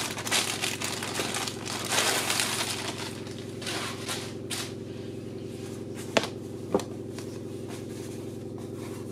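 Clear plastic garment bag crinkling as a folded sweatshirt is slid out of it, then softer rustling of the cloth being handled. Two short sharp clicks come a little after six seconds in, over a steady low hum.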